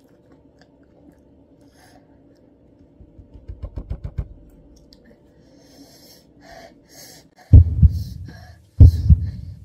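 A man panting and blowing hard through pursed lips, his mouth burning from an extremely hot spicy peanut. About three seconds in there is a quick run of short puffs, then hissing breaths, and near the end two loud blustery blows close to the microphone.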